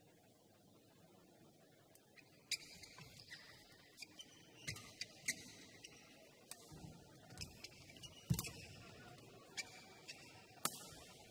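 Badminton rally: sharp, irregular smacks of rackets striking the shuttlecock, starting about two seconds in and coming every second or few, mixed with short high squeaks of shoes on the court floor.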